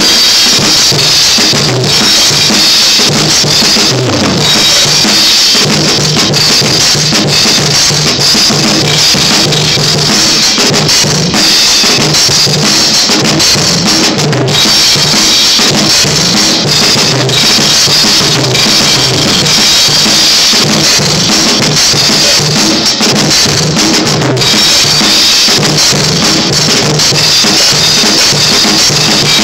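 Drum kit played loudly and without pause at a sound check, kick and snare hits running throughout.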